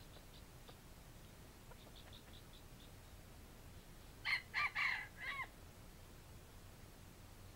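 A red junglefowl (wild chicken) rooster crows once about four seconds in: a short crow of four quick notes lasting about a second, the last note bending down. A few faint high ticks come before it.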